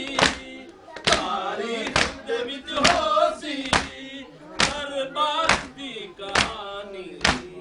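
Men chanting a noha lament together, while chests are struck in matam about once a second, each slap a sharp beat keeping time with the chant.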